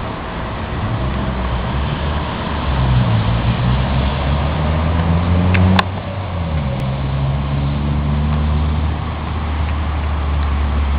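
A motor vehicle's engine running, its pitch rising steadily, then dropping abruptly with a click a little past halfway before carrying on at a steadier pitch.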